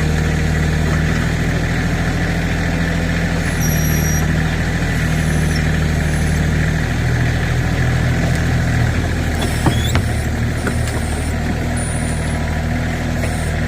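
Tractor backhoe's engine running steadily, its pitch shifting a little past the middle as the bucket works. A few sharp cracks and snaps near ten seconds in are brittle plastic toys being crushed.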